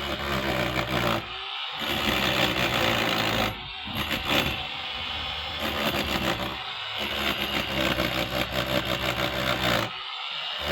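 A motor or engine running, with clattering and scraping over it. The sound breaks off and restarts abruptly several times.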